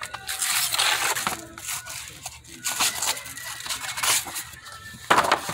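Paper paint colour swatch cards and a fold-out colour chart being handled and shuffled, rustling and crinkling unevenly, with a louder rustle near the end.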